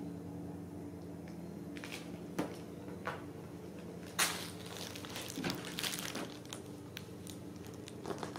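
Kittens playing with a paper wrapper: irregular crinkles and crackles of paper, the sharpest about four seconds in and a flurry soon after, over a steady low hum.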